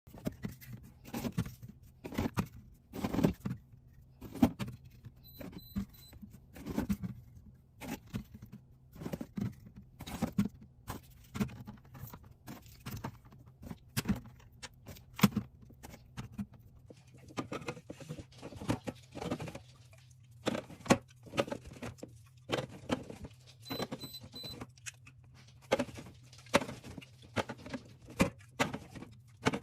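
Drink cans and bottles clinking and knocking as they are handled and set onto fridge shelves, in many irregular taps, over a steady low hum.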